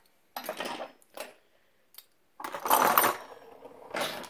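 Metal fidget spinners clinking and clattering against each other as they are picked up and shuffled by hand: a few short clinks, then a longer, louder clatter about halfway through.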